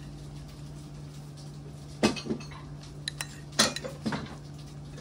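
Cutlery clinking against dishes: a handful of short, light clinks starting about two seconds in, the loudest a little past halfway, over a steady low hum.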